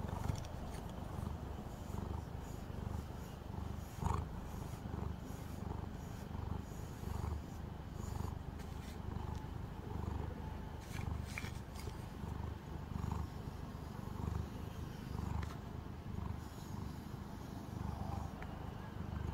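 Calico cat purring steadily at close range, the low purr swelling and easing with each breath.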